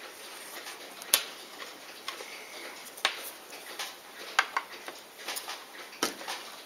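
Small, sharp, irregular clicks and taps from a watch movement and fine watchmaker's tools being handled on a movement holder, the loudest about a second in.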